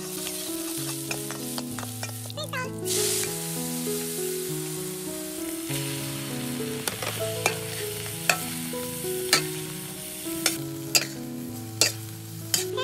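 Stir-frying in a wok: garlic and scallions sizzling in hot oil, the sizzle growing louder about three seconds in as chopped beef is tipped in. In the second half a metal wok ladle knocks and scrapes against the wok about once a second. Soft background music plays underneath.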